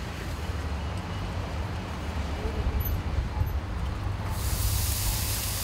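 Low, steady rumble of street traffic; about four seconds in, a sudden hiss of water sizzling on the hot dosa griddle (tawa), which keeps on hissing.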